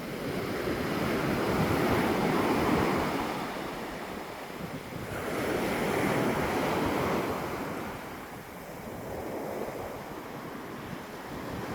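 Ocean waves breaking and washing onto the beach: two swells of surf, one peaking about two to three seconds in and another about six to seven seconds in, with a quieter wash between and the next wave building near the end.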